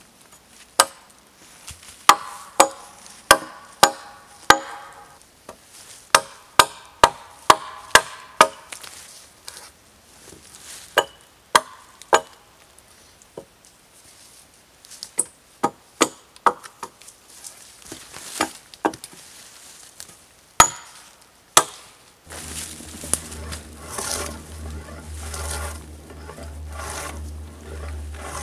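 Hatchet chopping into a bark-covered wooden pole: sharp, irregular blows, often in quick runs of about two a second. Near the end the chopping stops and a steady low rumble with rustling takes over.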